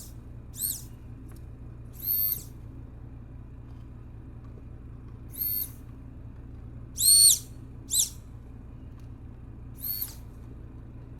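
Honda CBR600RR electric fuel pump on the bench, spinning up and whining for a fraction of a second each time its leads touch the battery, about eight times at irregular intervals; each whine rises in pitch and then falls away. A steady low hum runs underneath.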